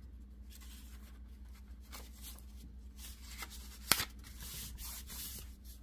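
Hands rubbing and sliding over folded kraft paper, a soft rustling as the glued signature is pressed flat, with one sharp tap just before four seconds in. A steady low hum runs underneath.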